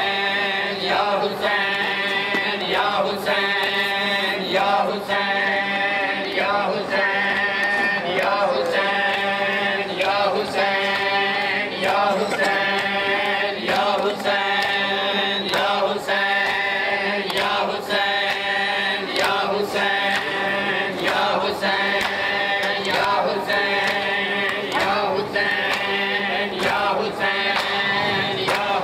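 A chorus of men chanting a Muharram noha (lament) in unison. Rhythmic chest-beating slaps (matam) keep time throughout.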